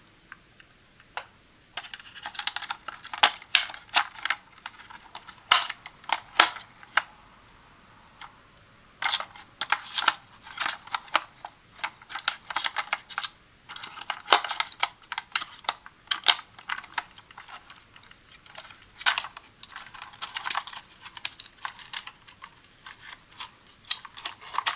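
Hands handling a plastic Kidde smoke and carbon monoxide detector and its packaging: a string of light clicks, taps and rustles, with a short lull about eight seconds in.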